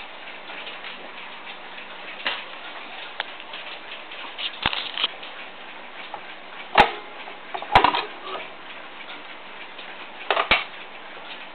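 Mantel clock with a Franz Hermle & Sohn (FHS) motor-driven movement ticking steadily. Several louder knocks and clacks come in between as a hand handles the clock's case and glass.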